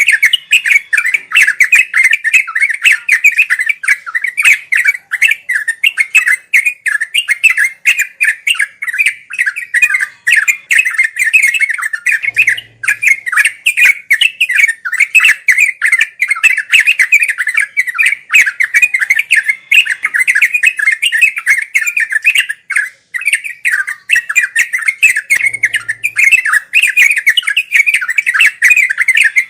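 Yellow-vented bulbul (trucuk) singing a rapid, unbroken chattering song with no pauses, the 'ngeropel' style of song used to tutor caged birds.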